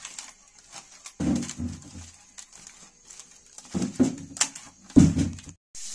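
Hands squishing and turning turmeric-and-salt-coated raw fish pieces in a steel bowl, with many small wet clicks. Three short, low animal calls are louder over it: about a second in, near four seconds and near five seconds.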